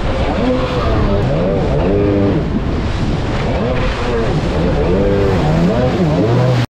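Jet ski engine revving up and down over and over as the craft rides and jumps big waves, under a steady rush of wind and spray; the sound cuts off abruptly near the end.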